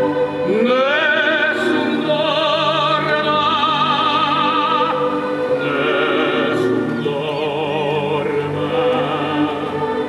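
Music: operatic singing with wide vibrato over orchestral accompaniment, the voice coming in with a rising swoop about half a second in.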